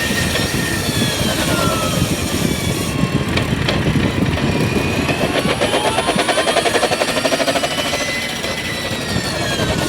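Geely Borui GE plug-in hybrid driving at low speed with a rapid, continuous rattling knock from the drivetrain under the car, over a whine that rises and falls with speed. The knocking is the 咯噔咯噔 noise the car makes below 60 km/h when accelerating or braking, later traced to a worn-down ball in a gearbox bearing.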